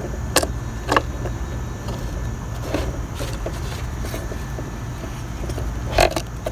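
Several sharp plastic clicks and knocks from a bladed trimmer head being handled and fitted onto a cordless string trimmer, the loudest near the end, over a steady low hum.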